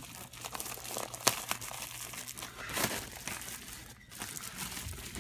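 Plastic crinkling and crackling of an insulated flex duct's jacket and inner liner as gloved hands work it over the end of a 6-inch round metal pipe, with scattered sharp crackles.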